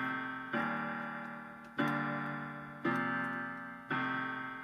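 Instrumental passage of a song: slow piano chords struck about once a second, each left to ring and fade before the next.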